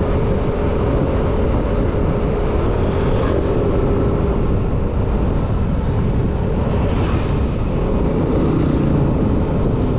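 Yamaha Aerox 155 scooter's single-cylinder engine running steadily at cruising speed, under a heavy rush of riding wind on the microphone.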